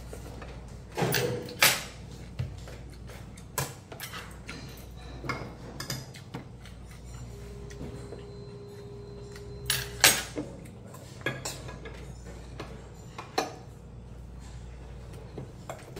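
Metal chopsticks and spoon clinking against a stainless steel bowl and ceramic side-dish plates during a meal, in scattered sharp clicks. The clicks are loudest about a second in and again about ten seconds in, over a low steady hum.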